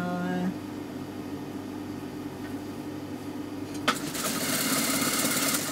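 Toyota industrial sewing machine: its motor hums steadily, then about four seconds in the needle starts stitching with a sharp click and runs at a fast, even pace, sewing a seam near the bottom edge of a salwar hem.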